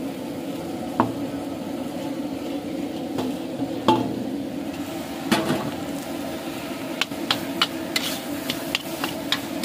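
Boiled potatoes tipped off a steel plate into an iron kadhai: soft scraping with several sharp metal clinks of the plate and a spatula against the pan, more of them near the end, over a steady low hum.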